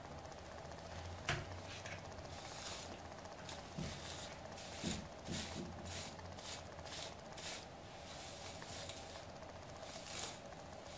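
A vented plastic-bristled hairbrush drawn through freshly curled hair in quick repeated strokes, about two to three a second, starting a couple of seconds in: brushing out tight curls to loosen them into waves. It is faint.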